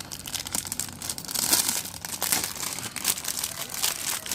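Plastic packaging crinkling and tearing as it is pulled open by hand, a dense run of small crackles.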